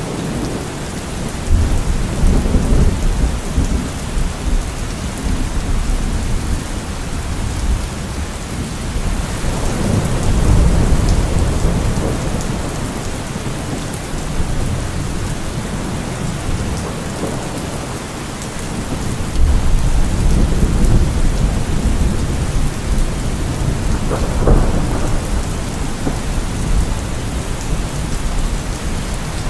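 Steady heavy rain with thunder rumbling in several rolling swells, the deepest about two seconds in, around ten seconds in, and from about nineteen to twenty-two seconds in.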